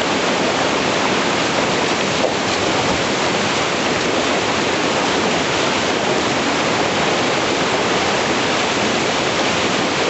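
Steady rush of whitewater: a river rapid pouring over rocks into a foaming hole, unbroken and even throughout.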